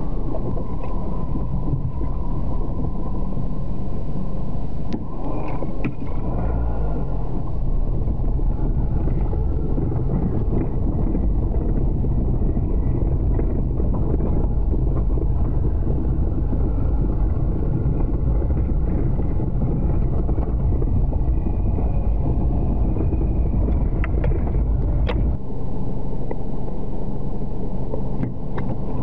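Vehicle engine and running gear rumbling steadily, heard from inside the cab while driving over a rough forest track. The deepest part of the rumble eases off about three-quarters of the way through.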